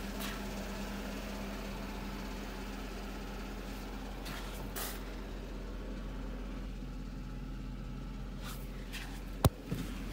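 Mercedes W140's engine running with a steady low hum, heard from inside the cabin. A few brief rustles come through, and a single sharp click sounds near the end.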